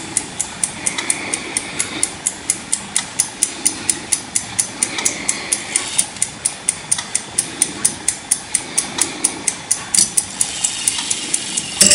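The escapement of a Girod pendulette's five-tone chime movement, c. 1930–1940, ticking steadily at about four ticks a second.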